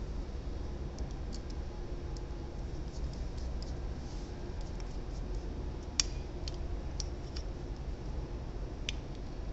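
Light metallic clicks and ticks as a screwdriver and small metal parts are worked on a disassembled Robin engine carburetor, with one sharper click about six seconds in, over a steady low background hum.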